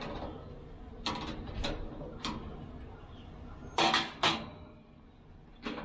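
Hand tools clicking and clanking against the smoker's steel body and metal side shelf while fittings are tightened: a few scattered sharp clicks, two loud clanks about four seconds in, and one more near the end.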